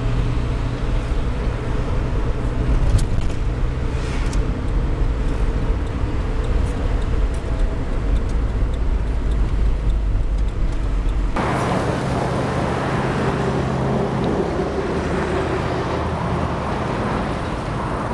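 Engine and road noise of a vehicle driving, heard from inside the cabin. A steady low hum runs until about eleven seconds in, when the sound changes abruptly to a thinner, noisier rush.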